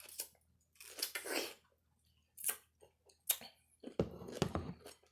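Close-up chewing and mouth noises: irregular wet, crackly clicks and smacks as a mouthful of food is eaten, busier about four seconds in.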